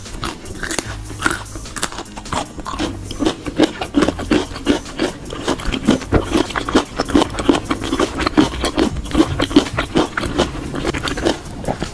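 Raw vegetables and leafy greens being chewed and crunched close to the microphone, a fast run of wet, crisp bites and chews several times a second.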